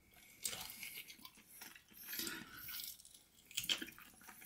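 A man chewing and biting on barbecue ribs, with wet mouth sounds and small crunches coming in uneven bursts.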